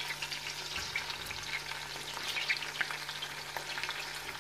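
Oil sizzling and crackling in a pot of sliced onions as pieces of boiled mutton are laid in with tongs, with scattered sharp pops and ticks over a steady hiss.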